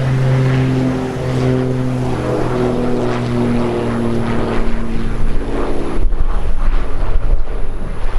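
Propeller aircraft passing: a steady propeller drone that drops slightly in pitch as it goes by. About six seconds in it gives way to a low rumble.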